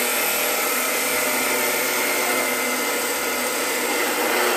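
Abrasive cut-off saw running steadily, its disc cutting steel.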